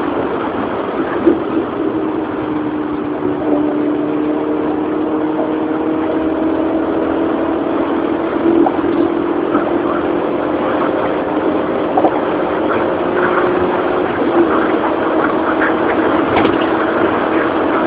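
Car engine running steadily, its pitch dropping slightly over the first several seconds and then holding, with a few scattered small knocks.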